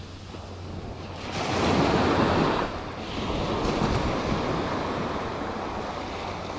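Small surf breaking and washing up a sandy beach; one wave swells and washes in about a second and a half in, then the wash settles to a steady hiss.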